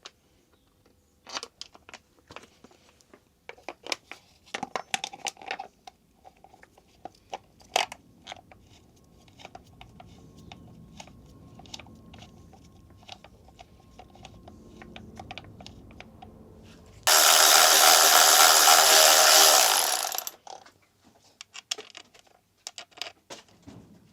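Small metal tool and parts clicks and knocks from hand work on the engine, then a power tool running loudly for about three and a half seconds before stopping abruptly.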